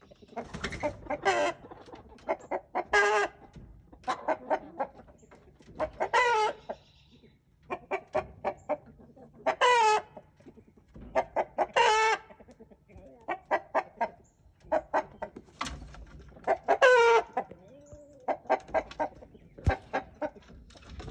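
Chickens clucking and squawking, with runs of short calls every second or two and a few longer, drawn-out squawks.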